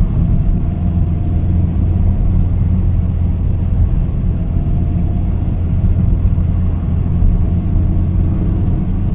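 Steady low rumble of a Toyota Corolla EE100 on the move, heard from inside the cabin: the carbureted engine running at an even speed under road noise, with a faint steady whine above it.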